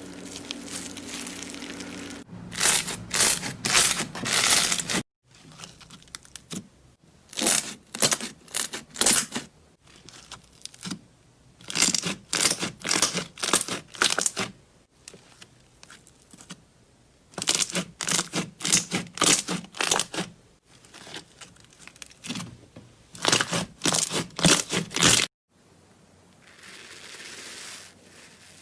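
Slime being squeezed and worked by hand, giving clusters of quick crackling pops every few seconds with quieter squishing between them.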